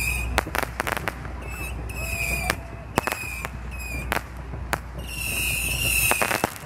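Distant aerial fireworks: a run of sharp bangs and crackles from shells bursting, several in quick clusters. A high, steady whistling tone joins in over the last second and a half.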